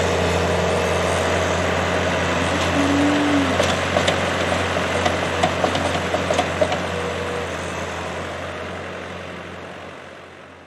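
Diesel engines of a skid-steer loader and a farm tractor running steadily while the skid steer lifts and dumps a bucket of corn silage into a mixer wagon. A series of light clicks and knocks comes in the middle. The sound fades out at the end.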